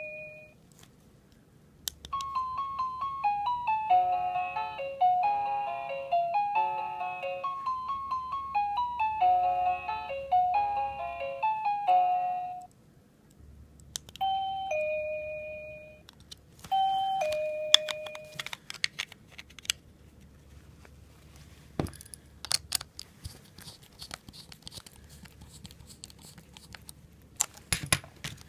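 Plug-in wireless call chime receiver sounding its chime tones. First comes a melody of bell-like notes lasting about ten seconds, then a two-note ding-dong twice. After that come scattered sharp clicks and handling noises.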